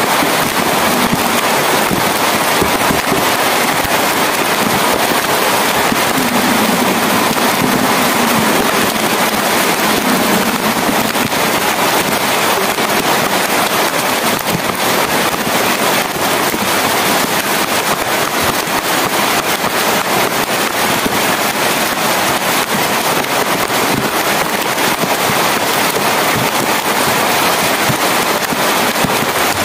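Heavy rain falling steadily, a dense, even patter of many drops striking.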